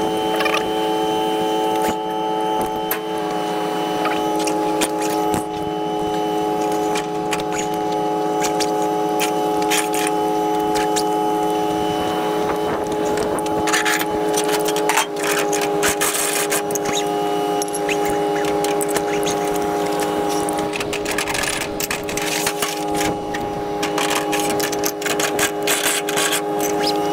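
A steady engine drone whose pitch steps slightly about three seconds in and again midway, with scattered clicks and rattles over it.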